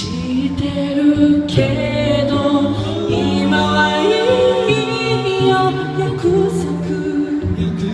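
Four-voice a cappella group singing in close harmony into handheld microphones, several voices holding and moving chords over a low bass line, with no instruments.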